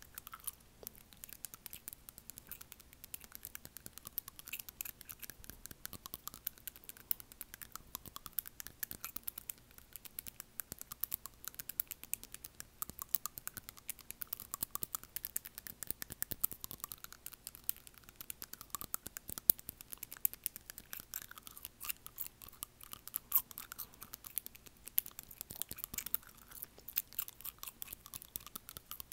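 Rapid, continuous tapping of acrylic fingernails on front teeth, close to an earbud microphone, with wet mouth sounds from chewing gum.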